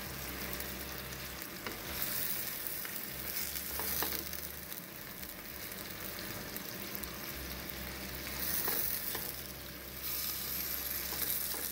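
Thin strips of beef sizzling in a stainless-steel pan while a slotted nylon spatula stirs and scrapes them, with a few light knocks of the spatula on the pan. The meat is at its first stage, cooking in the juice it has released before it starts to brown.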